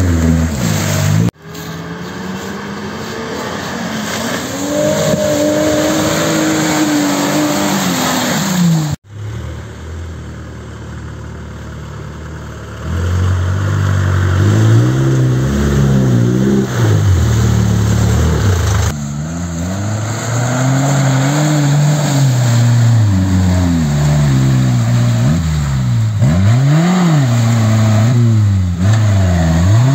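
Off-road 4x4 engines revving hard through deep mud, the pitch rising and falling again and again, across several edited shots that change abruptly.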